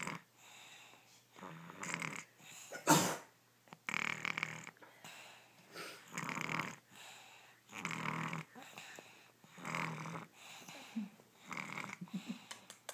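A sleeping baby snoring, one rasping snore about every two seconds, with one shorter, sharper and louder snore about three seconds in.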